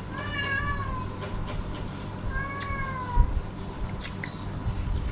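A cat meowing twice, each call under a second with its pitch rising and then falling. Small clicks and a dull thump about three seconds in.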